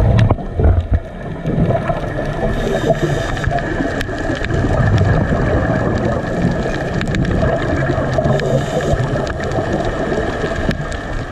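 Underwater sound picked up by an action camera in its waterproof housing: a steady, muffled rush with gurgling, and a few sharp clicks.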